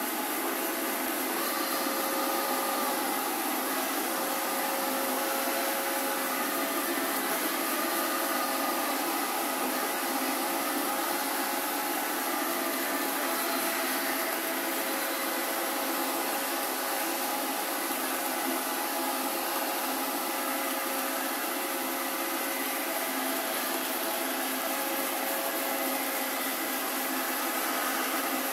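Alfawise X5 robot vacuum cleaner running in automatic cleaning mode: a steady, unchanging whir of its suction fan and brushes, with a faint steady whine in it.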